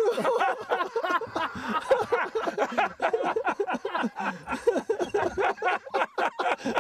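Men laughing loudly together, several voices in quick overlapping bursts of chuckling and laughter.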